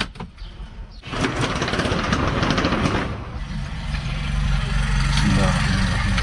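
Car engine cranked by its starter and catching about a second in, then running at a steady low idle. A sharp knock comes at the very start.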